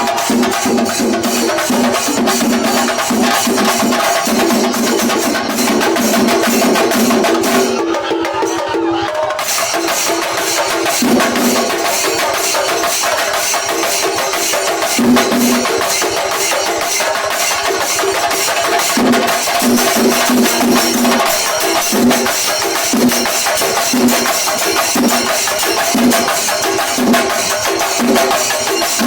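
A singarimelam ensemble playing: chenda drums beaten in fast, dense strokes with cymbals, under a melody of held notes. About eight seconds in, the drumming briefly drops away, then comes back in.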